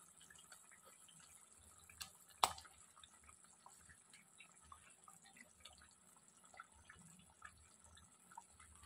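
Thick fish curry simmering in a pot, bubbles popping faintly in small scattered blips, with a sharp knock about two and a half seconds in.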